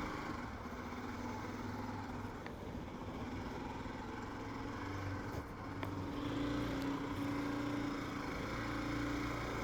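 A motorcycle engine running steadily at low revs, a continuous low hum.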